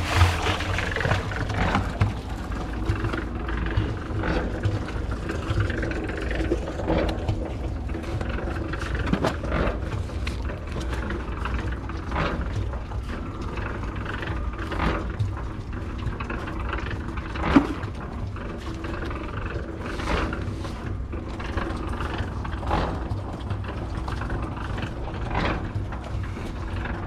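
Electric cement mixer running steadily, its drum turning a wet cement-and-lime mortar mix, with irregular scrapes and knocks of a shovel digging sand; one sharp knock about two-thirds through is the loudest.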